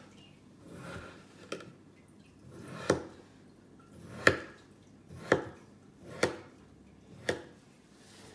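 Knife slicing repeatedly through a moulded block of play sand: about seven slices, roughly one a second, each a soft grainy scrape that ends in a sharp tap as the blade meets the table.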